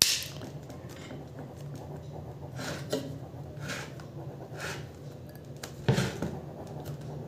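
Hands pressing and moving the freshly glued cone of a 10-inch subwoofer. There is a sharp click at the start, then a few soft scuffs about a second apart, the one near the end loudest, over a steady low hum.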